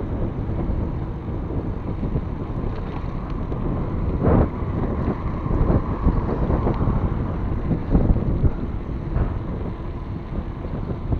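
Wind rushing over an action camera's microphone on a moving mountain bike, with a low rumble from the tyres on asphalt and a few knocks from bumps, the strongest about four seconds in and about eight seconds in.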